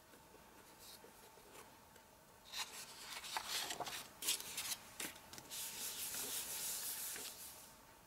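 Paper and cardstock rubbing and sliding across the work surface as the pieces are handled, with a few light taps. It starts about two and a half seconds in, and a longer sweep comes near the end.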